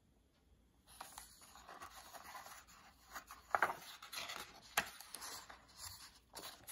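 A page of a hardcover picture book being lifted and turned by hand: faint paper rustling and sliding, with a few sharper flicks, the loudest about three and a half seconds in.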